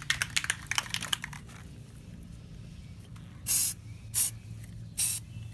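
Aerosol spray-paint can: a quick rattling of clicks as it is shaken, then three short sprays of hiss, the last longest, laying paint on the water for hydro dipping.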